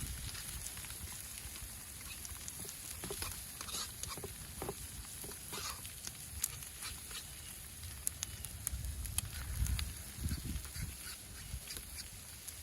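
Ham and eggs frying in a hot pan: a steady sizzle with scattered pops and crackles.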